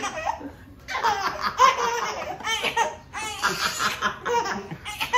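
A baby laughing in repeated bursts while being lifted up and down, with an adult woman laughing along; the laughter picks up about a second in after a brief lull.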